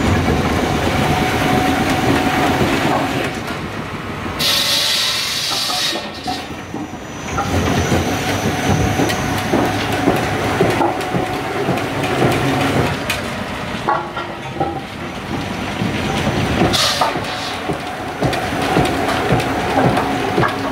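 Chinese wood-peeling machinery running: the motors hum steadily under a continuous rattling clatter as logs are turned and shaved into veneer. A brief hiss comes about four and a half seconds in.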